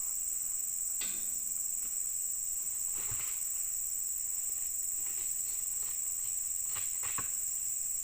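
Insect chorus: a steady high-pitched buzz that does not change, with a few soft knocks scattered over it.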